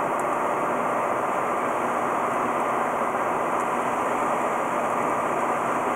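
Steady road and engine noise inside a vehicle's cabin, cruising on a freeway at about 92 km/h.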